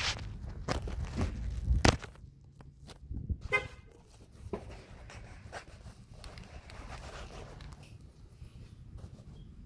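Knocks and rustling from a handheld phone being moved about, loudest in the first two seconds, then a single short honk-like tone about three and a half seconds in. Faint scattered ticks and steps follow.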